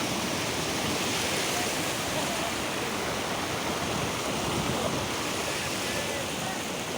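Floodwater rushing and flowing steadily, an even rushing noise without breaks.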